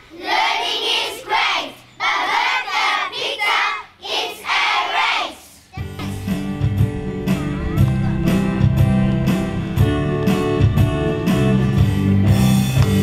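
A group of young children's voices chanting loudly together in short phrases. About six seconds in it cuts abruptly to recorded music with a strong bass and a steady beat.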